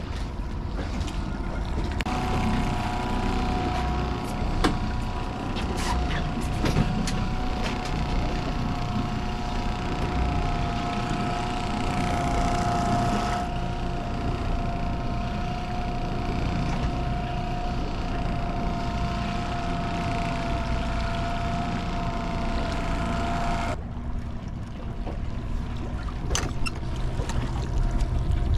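Motorboat engine running under a steady mechanical whine that switches on about two seconds in and cuts off sharply about five seconds before the end, with a few knocks and water noise.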